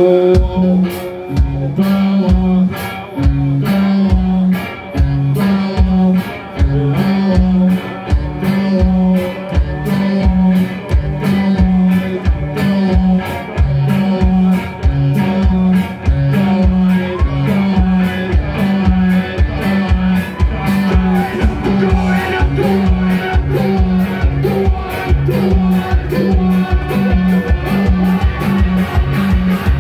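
Live rock band playing loud: a steady, fast drum beat, a repeating low bass riff, electric guitars and keyboard, heard from the crowd in a small club.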